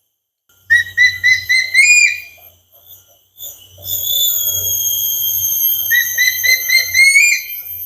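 Juvenile eagle calling loudly. It gives a quick run of about half a dozen high whistled notes that rise at the end, then a long held whistle of about four seconds, then another rising run of notes.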